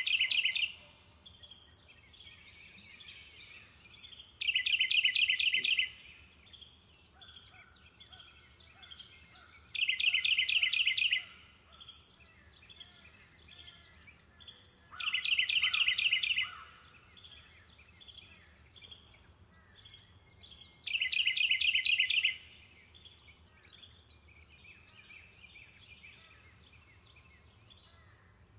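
A songbird repeating the same quick, trilled phrase, about a second long, five times at intervals of roughly five to six seconds. Fainter bird calls and a steady high insect-like drone run between the phrases.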